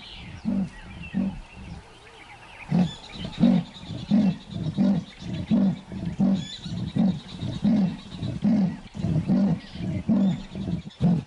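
Leopard giving its rasping call: a long, even series of deep, hoarse grunts, about one and a half a second, growing louder after the first two seconds. Leopards use this call to announce their presence to other leopards.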